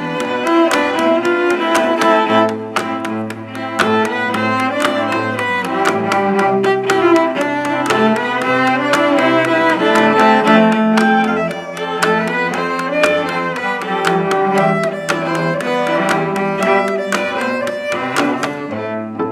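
Layered solo cello music: plucked pizzicato notes and light percussive taps on the cello's bridge keep a steady beat under a soft bowed melody with sliding notes. The taps drop away near the end.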